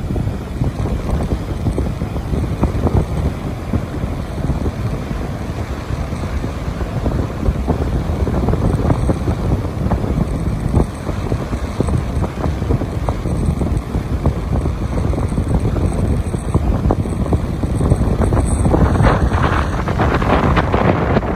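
Wind buffeting the microphone: a loud, steady low rumble that grows stronger and brighter near the end.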